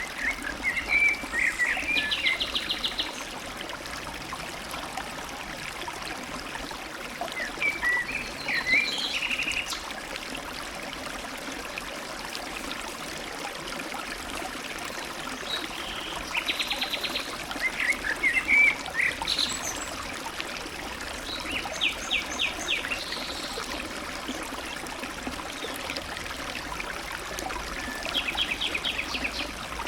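A mountain stream running steadily in a gorge, with a songbird singing five short phrases over it, each a quick twittering run ending in a fast trill.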